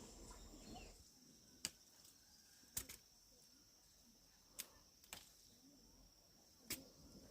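Near quiet, broken by about five short sharp clicks or snaps a second or two apart, over a faint steady high hiss.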